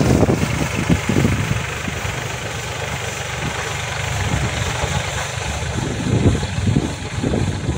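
Compact VST Shakti tractor's diesel engine running steadily while driving a rear-mounted air-blast sprayer's fan, the hum mixed with the rush of the blower; the sound swells unevenly near the start and again around six seconds in.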